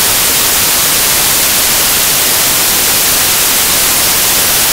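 Loud, steady static hiss, strongest in the high treble, with no other sound standing out from it.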